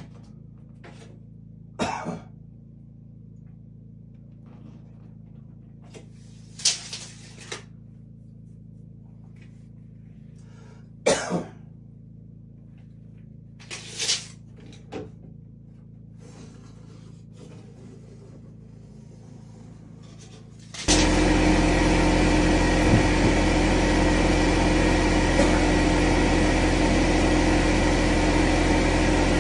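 A few short, sharp clicks and knocks. Then, about two-thirds of the way in, a loud, steady machine hum with a constant pitch starts suddenly and keeps going.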